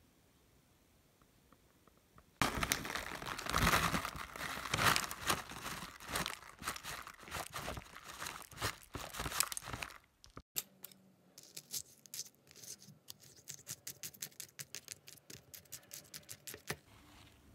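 Plastic snack pouch crinkling and rustling as granola is shaken out of it into a yogurt cup. After a short break, a plastic spoon stirs and scrapes inside the plastic yogurt cup in quick little clicks.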